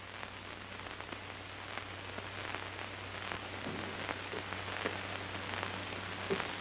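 Hiss and crackle of an old film soundtrack, scattered with faint ticks, over a steady low hum.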